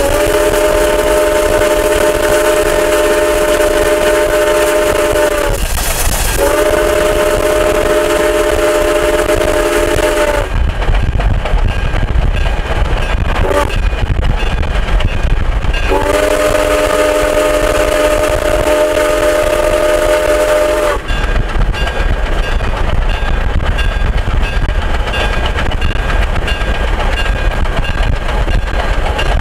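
Iowa Interstate 6988, a Chinese-built QJ-class 2-10-2 steam locomotive, sounding its chime steam whistle in three long blasts, the third after a longer pause. Each blast slides up briefly into its chord as it opens. A steady low rumble lies underneath throughout.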